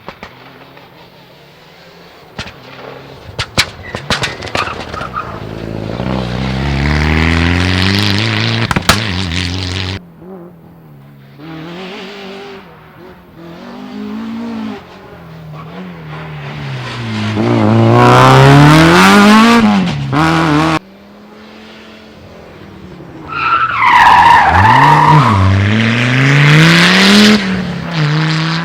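Rally cars at speed on a stage, one after another, each engine revving up and falling back repeatedly through gear changes and braking; the sound cuts off suddenly twice between cars. A few sharp clicks come early, before the first car arrives close.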